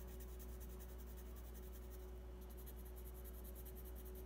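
Graphite pencil shading on drawing paper, a faint soft scratching, over a steady low hum.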